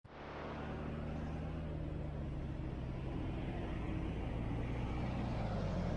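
Street traffic: a motor vehicle engine running with a steady low hum over road noise, slowly growing louder.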